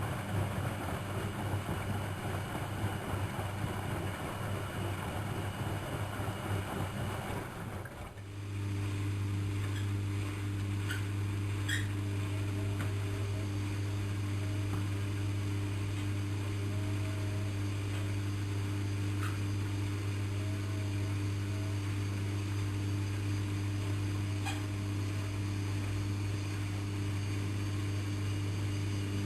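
Lloyds 825 washing machine running with a steady low hum. For the first eight seconds a rushing, water-like noise sits over the hum; it then stops abruptly, leaving the hum alone with a few faint clicks.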